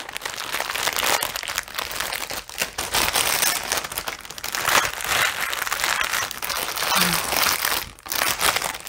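Clear plastic bag crinkling steadily as hands open it and handle the small drill packets inside, with a brief lull near the end.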